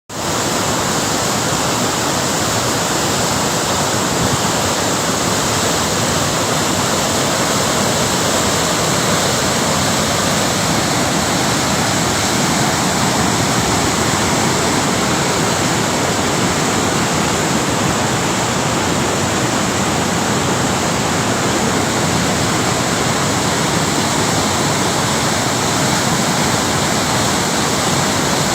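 A waterfall swollen with flood water, pouring and crashing in a loud, steady, unbroken rush.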